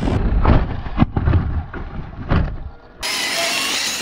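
Balloons popping several times in quick succession as a spike-fronted RC car drives into them, over the low rumble of the car running across grass. About three seconds in, this gives way to a steady hiss.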